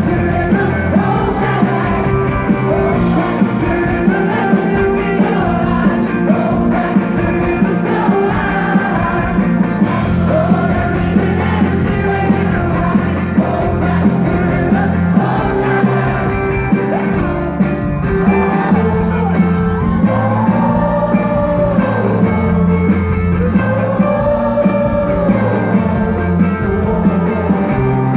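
Live rock band playing loudly: electric guitar and drums over a steady beat, with singing above them.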